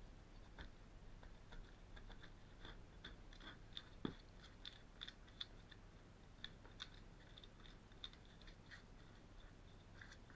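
Faint scraping, crackling and clicking of hand tools working at the bottom corner of a caravan wall, picking away crumbly debris, with one sharper knock about four seconds in.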